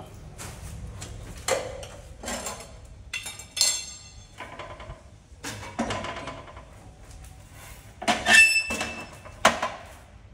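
Irregular metallic clinks and scrapes from metal objects being handled, several ringing briefly; the loudest cluster comes about eight seconds in, over a low steady hum.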